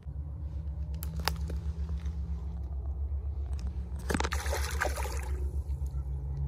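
A largemouth bass splashing in the shallows as it is released by hand, a burst of water noise just after four seconds in that lasts about a second. A low pulsing rumble runs underneath throughout.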